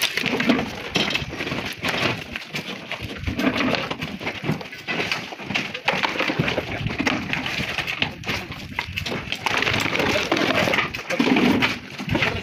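Thin flat natural stone slabs clattering and knocking against each other as they are picked up off a pile and stacked, in a run of many short irregular clacks.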